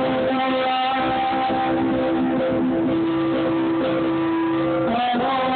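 Live band music with electric guitar: long held notes, then a change of chord about five seconds in. It is recorded from the audience and sounds muffled and poor in quality.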